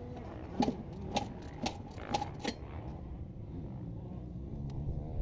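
Five sharp clicks in quick succession, about half a second apart, over the low running of a two-stroke dirt bike engine, the 2011 KTM 150 XC, which comes through more clearly near the end.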